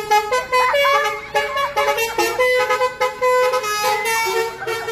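Mulyo Indah bus's basuri telolet horn playing a melody: a string of loud held horn notes stepping up and down in pitch, one after another.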